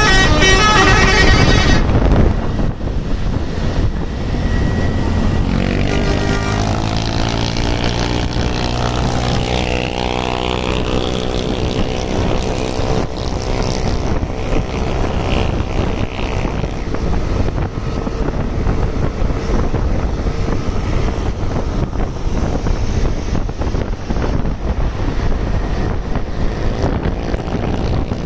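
A bus telolet horn plays its rapid multi-tone melody, stopping about two seconds in. A few seconds later a vehicle engine revs up, its pitch rising, and then steady traffic and road noise goes on.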